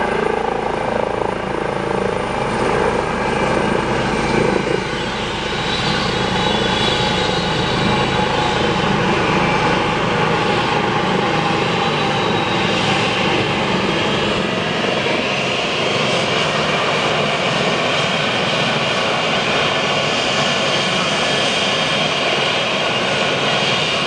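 Trauma helicopter's rotor and turbine engine running loud and steady at close range, with a constant whine of several high tones over the rotor noise; the deep low rumble fades about halfway through.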